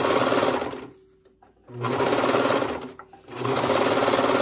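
Brother four-thread serger (overlocker) stitching the cut edge of a denim hem strip, running in bursts with a fast even rattle. It stops for nearly a second about a second in, runs again, pauses briefly near three seconds, then runs on.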